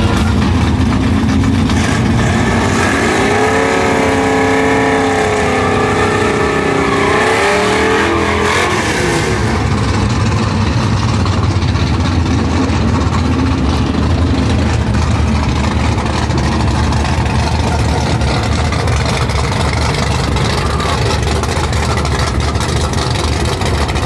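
Red Camaro drag car's engine revving, its pitch rising and falling for several seconds, then running steadily at a low pitch.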